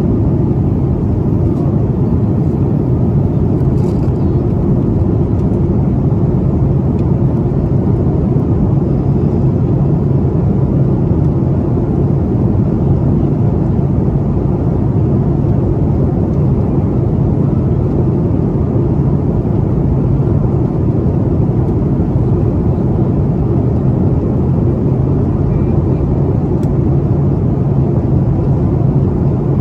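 Steady, loud cabin roar of a Boeing 737 MAX 9 in flight, heard from a window seat inside the cabin: the hum of its CFM LEAP-1B turbofans mixed with airflow rush, deep and unchanging.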